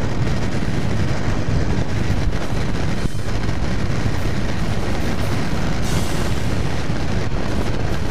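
Steady rush of wind over the microphone mixed with the drone of a Kawasaki GTR 1400's inline-four engine and its tyres, cruising at motorway speed.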